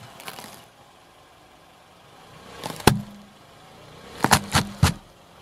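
Car tyre rolling slowly onto a green bulb vegetable on asphalt, the noise building to a sharp crack about three seconds in as it starts to split, then three quick cracks a little after four seconds as it is crushed under the wheel.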